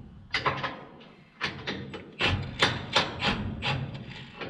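Impact wrench fired in short bursts, about three knocks a second, snugging up a bolt to draw the drill's mounting bracket in a little.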